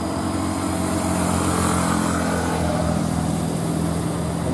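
Fully loaded Hino 500 dump truck's diesel engine pulling steadily in a low gear as it crawls up a steep climb. A small box van passes close by, its engine and tyre noise swelling and fading in the first couple of seconds.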